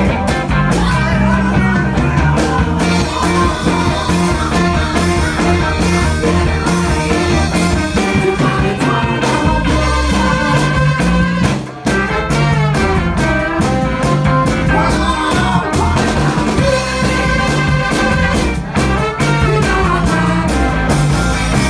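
Live ska band playing loud: a horn section of trombone, trumpet and saxophone over drums and electric bass, with a woman singing. The band cuts out for a split second about halfway through, then comes straight back in.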